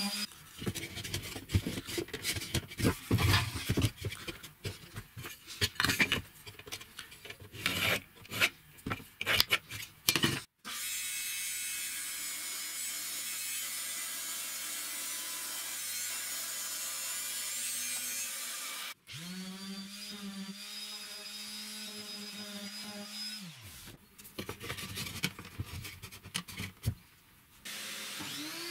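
Woodworking by hand and machine: irregular rubbing and scraping strokes on wood, a stretch of steady hiss, then a small electric power tool starting, running for about four seconds and winding down, followed by more scraping. A motor starts up right at the end.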